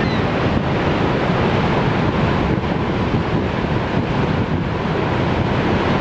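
Niagara's Horseshoe Falls: a huge volume of water pouring over the brink into the plunge pool, heard as a steady, dense rush of water with a deep low rumble.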